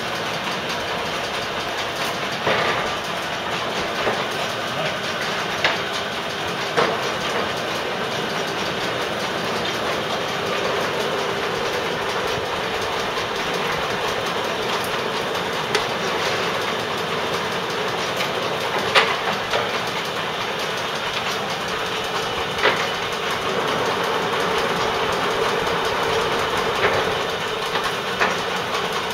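Ward No. 7 combination turret lathe running under power with no cut being made: a steady mechanical clatter, with a few sharp clicks standing out now and then.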